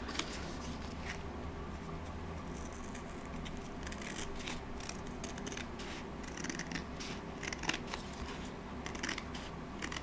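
Scissors cutting through a thin card, a series of short snips at irregular intervals.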